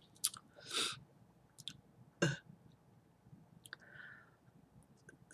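Faint eating sounds from a person's mouth: scattered small clicks and smacks, a soft breath about a second in, and one sharper click a little after two seconds.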